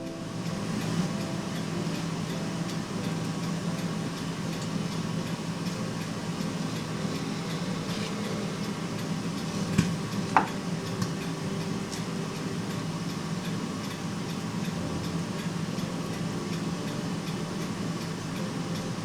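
Steady low hum of a running appliance motor or fan, with two sharp clicks a little past halfway.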